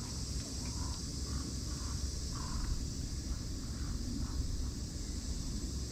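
Steady high insect chirring over a low wind rumble on the microphone, with a few faint short bird calls.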